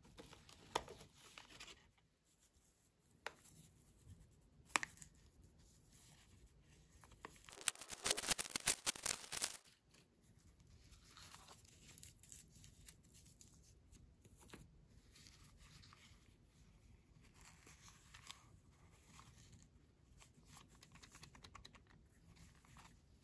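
The printed wrapper of a small toy box is torn open, a loud, dense tearing for about two seconds about a third of the way in. Before it come a few sharp taps of small cardboard boxes being handled, and afterwards soft crinkling as the wrapper and box are handled.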